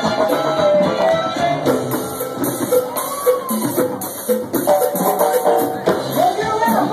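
Live banda music: a Mexican brass band of clarinets, trombones and tuba playing over percussion with a steady beat.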